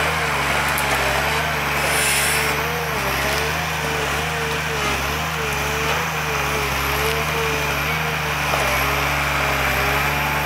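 Valmet 911.1 forest harvester's diesel engine running steadily under working load, with a whine that wavers up and down as the boom and Moipu 500 head move. A brief hiss about two seconds in.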